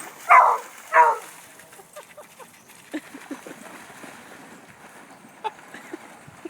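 A dog barking twice in quick succession, about a second apart, followed by faint scattered ticks.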